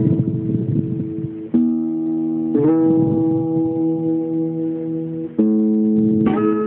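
Acoustic guitar playing slow chords, each struck and left to ring, with a new chord about every one to three seconds.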